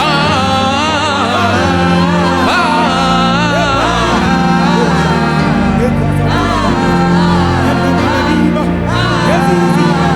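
Gospel worship song: voices singing a melody with wide vibrato over steady held chords and a bass line.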